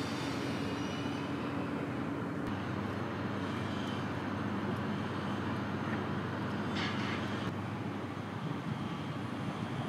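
Steady hum and rumble of a CAF Urbos 100 tram running off down the line, with general street noise around it. A brief hiss comes about seven seconds in.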